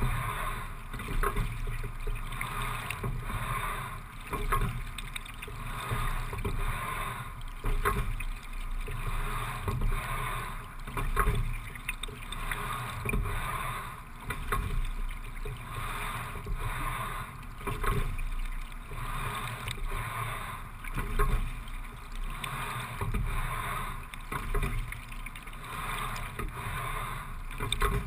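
Single scull being rowed at a steady low rating of about 17 to 18 strokes a minute. Each stroke brings a knock from the oars and oarlocks and a swell of water noise, repeating about every three and a half seconds.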